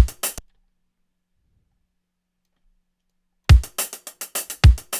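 Sampled drum pattern played back: a deep kick drum under a quick hi-hat loop. It cuts off after about half a second, then starts again about three and a half seconds in, with two kicks over the hi-hats.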